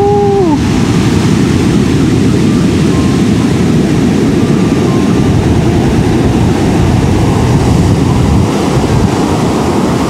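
Big ocean waves breaking on a sandy beach in a loud, steady rush, with wind buffeting the microphone.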